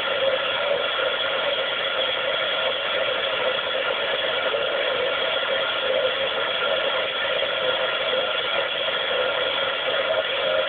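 CB radio receiver's loudspeaker giving out steady rushing static with faint steady tones in it, with no station readable through the noise.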